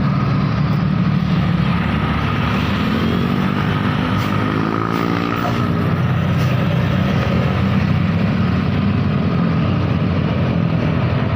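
Heavy vehicle engines and traffic running loud and steady close by, most likely tour buses in a convoy, with a passing engine's note bending in pitch around the middle.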